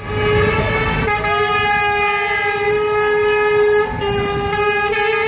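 Truck air horns blaring continuously as the lorries pass, a steady multi-note chord with a second horn bending up and down in pitch, and a brief dip just before the end.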